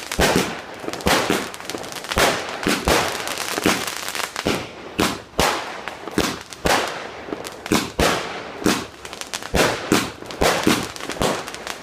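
Fireworks going off in a rapid, irregular string of sharp bangs and crackles, several a second.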